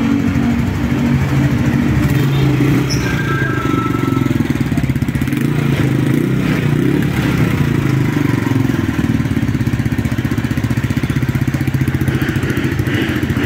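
Motorcycle engine running steadily, its pitch holding nearly level with small shifts.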